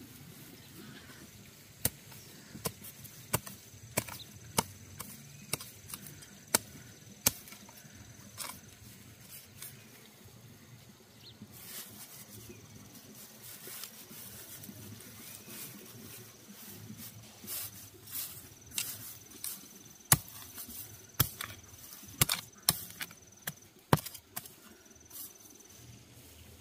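Dry straw mulch crackling and snapping as hands work soil around a transplanted seedling: a string of short, sharp clicks, fairly regular at first and then bunched together near the end. A thin steady insect whine runs underneath.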